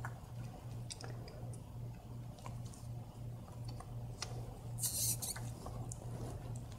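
Faint small clicks and rubbing of hose clamp pliers and gloved hands working a rubber fuel hose and its clamp, with a brief hissing scrape about five seconds in, over a low hum.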